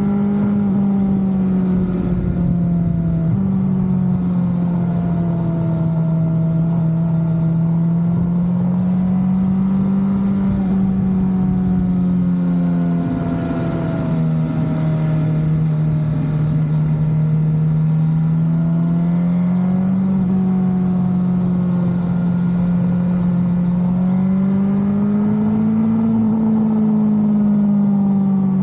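Motorcycle engine running at cruising speed, its note rising and falling slowly with the throttle through the bends, with a small step in pitch about three seconds in.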